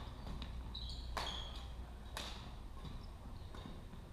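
Badminton rackets striking a shuttlecock in a rally, sharp cracks about once a second that ring briefly in the hall. Short high squeaks of shoes on the wooden court floor come in between.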